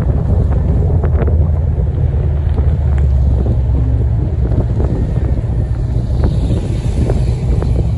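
Red Camaro's engine and exhaust, fitted with Texas Speed headers and a tune, giving a steady low rumble as it cruises slowly, with wind buffeting the microphone.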